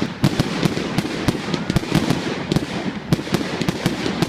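Fireworks going off: a rapid, irregular string of sharp bangs and crackles, several a second.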